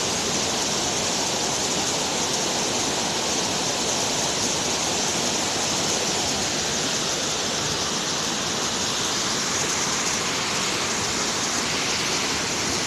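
Steady rushing of a waterfall, an even, unbroken noise.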